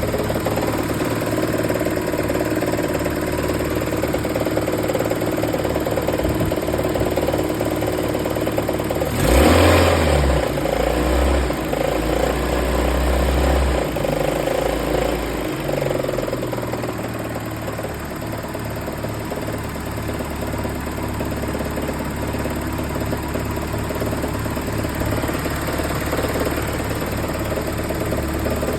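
Toyota 22RE 2.4-litre four-cylinder engine idling with a knock, revved up about nine seconds in and easing back to idle a few seconds later. The owner asks whether the knock is rod knock.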